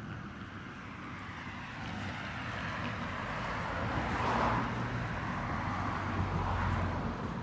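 A car passing on a nearby road: tyre and engine noise swells to a peak a little past halfway, with a low hum underneath.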